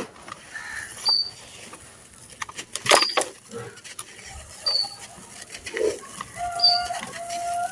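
Gritty charcoal and sand-cement chunks crumbling, with irregular crunches and crackles. A short high chirp repeats about every two seconds behind it, and a brief pitched call sounds near the end.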